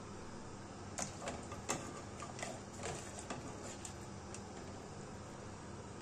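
Kitchen utensils tapping and clicking lightly against a pan and plate while pasta is served, in a scatter of faint, irregular clicks.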